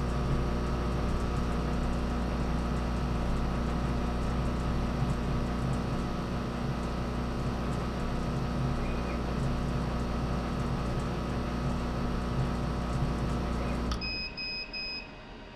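Laser engraver running an outline test pass on a wooden urn lid: a steady machine hum that stops abruptly about fourteen seconds in, followed by three short high beeps as the job finishes.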